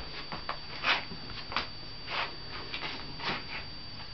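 Short, irregular scratchy brushing strokes of a push broom's bristles rubbing over a cat's fur and a tiled floor, the strongest about a second in.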